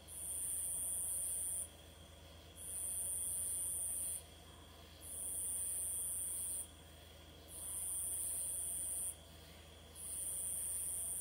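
Insects at dusk buzzing in a high, hissing chorus that swells up, holds for under two seconds and stops sharply, repeating in an even cycle about every two and a half seconds. A faint steady hum lies underneath.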